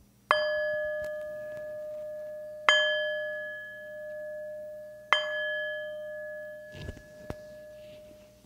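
A handheld metal singing bowl struck with a mallet three times, about two and a half seconds apart. Each strike rings on in several steady tones that slowly fade. A couple of low thumps come near the end.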